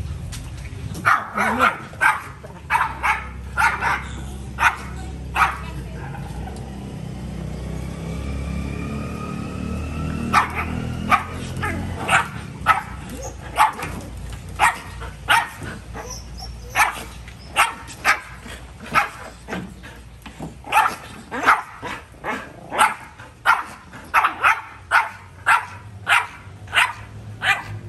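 Dog barking over and over in short, sharp barks, about one to two a second. The barking pauses for a few seconds about six seconds in, then picks up again and keeps going steadily. A low hum runs underneath during the first half.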